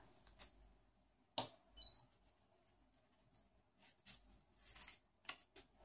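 A sharp click, then a short high-pitched electronic beep from the prototype's Arduino buzzer about two seconds in. Near the end, a run of soft clicks and rustles as fingers handle the jumper wires and breadboard.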